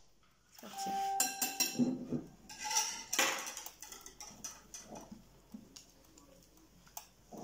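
A spatula and whisk clinking against ceramic mixing bowls, with the bowls ringing briefly. A spatula then scrapes a thick batter around a tipped bowl, louder about three seconds in and softer after.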